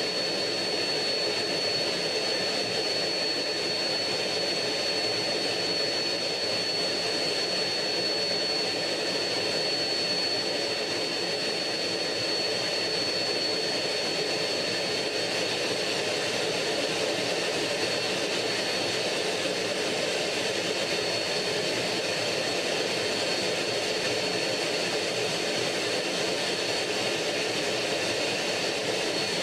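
MiG-15UTI two-seat jet's centrifugal-flow turbojet running steadily in flight, heard from a camera on the wing: a steady high whine over a constant rush of noise.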